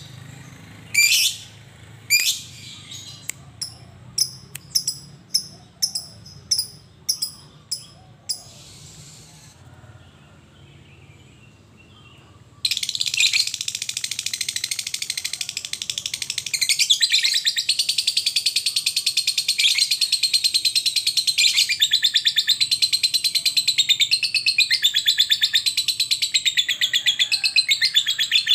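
A lovebird giving sharp single chirps, about two a second, then after a short pause breaking suddenly into a long, rapid, unbroken chattering trill, the 'ngekek', which gets louder a few seconds later and keeps going.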